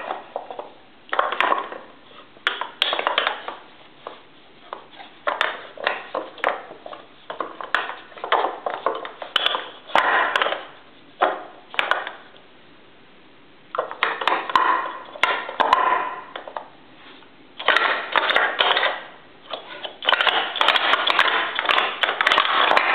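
Round wooden rods knocking and rattling in a wooden puzzle tray as a dog noses, lifts and paws at them to reach the treats underneath. The knocking comes in repeated bursts with short pauses.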